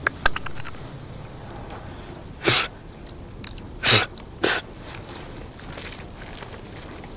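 A person blowing out breath in three short, forceful puffs, about two and a half seconds in and twice more around four seconds in, over a steady outdoor hiss. A quick run of small clicks comes first.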